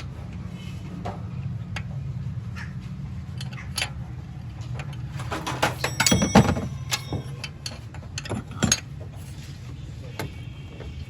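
Metal tools and engine parts clinking and knocking as they are handled, with a dense, ringing cluster of clinks about six seconds in and another knock near the end, over a steady low hum.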